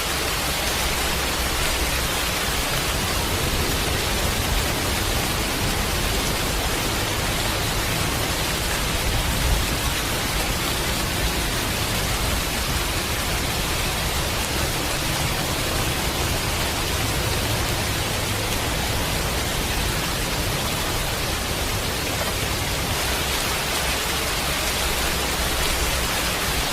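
Steady rushing of water, an even, unbroken noise, with one brief knock about nine and a half seconds in.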